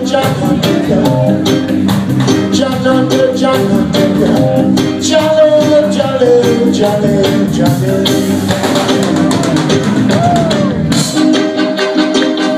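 Live reggae band playing: a drum kit keeping a steady beat under bass and guitars while the lead singer sings into the microphone. The deepest bass drops away about eleven seconds in.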